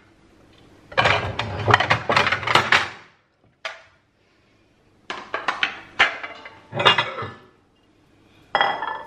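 Plates and dishes clinking and clattering as they are lifted off a cupboard shelf and set down. The knocks come in three groups with short quiet pauses between them.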